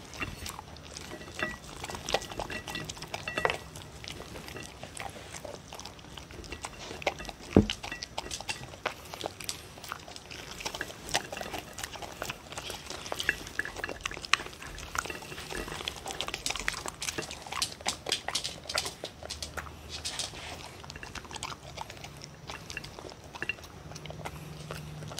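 Two dogs eating kibble mixed with chopped sweet potato and bell pepper from a ceramic plate, close to the microphone: irregular chewing and crunching with small clicks of food and teeth against the plate. One sharp, louder click comes about seven and a half seconds in.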